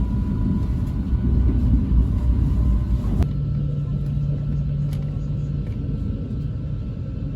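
Loud, steady low rumble, like a vehicle in motion. About three seconds in it changes suddenly to a steadier hum with a low tone and a faint high whine.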